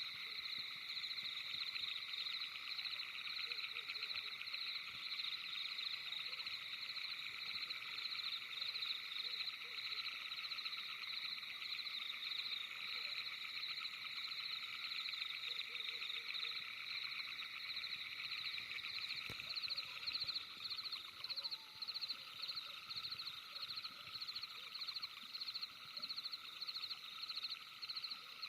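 Dense night chorus of calling animals, a steady high trilling. From about twenty seconds in it pulses more plainly, about two beats a second.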